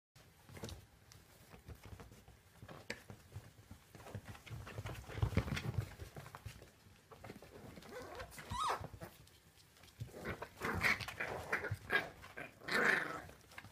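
Puppies play-fighting: low growls, short yelps and yaps, with small scuffling clicks throughout. A cluster of sharp yaps comes in the last few seconds, ending in the loudest cry.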